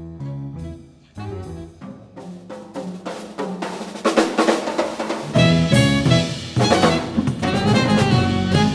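Live instrumental jazz from a band of saxophone, electric bass, piano and drum kit. The first few seconds are sparser, with pitched lines over drum accents; about five seconds in the whole band comes in louder.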